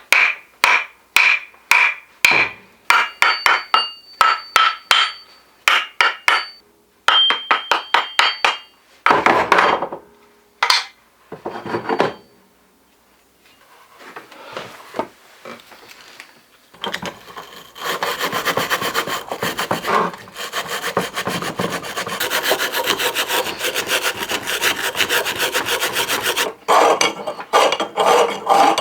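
Hand work on an old steel hatchet head. First comes a run of short separate scraping strokes, some leaving a thin metallic ring. After a pause, from about halfway, it becomes steady, fast rasping that lasts nearly to the end.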